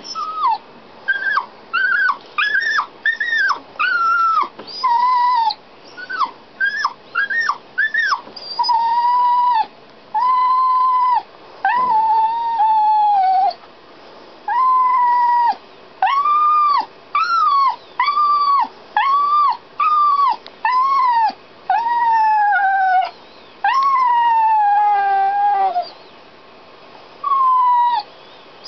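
Dog crying in a long run of high-pitched whines: short, quick rising-and-falling calls at first, then longer arched whines of about a second each with short gaps, several sliding down in pitch. It is the distress crying of a dog shut in alone while its owners are away.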